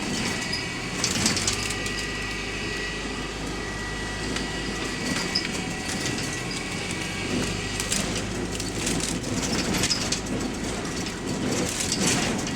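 A bus heard from outside, making its weird exterior sound: a steady thin high-pitched whine over its running noise, with bouts of rattling clatter about a second in, again later, and near the end.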